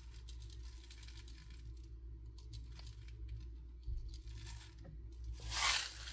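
Faint ticks of handling, then near the end a rising rush of rattling as steel BBs are poured into the BB pistol's magazine.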